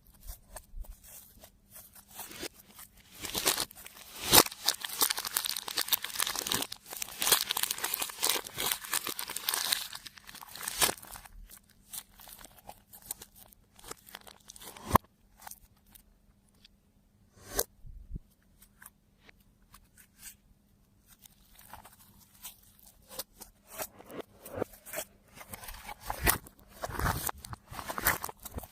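Slime being worked by hand, giving crackling, crunching sounds. The crackling is dense from about three to eleven seconds in, turns sparse, and picks up again near the end.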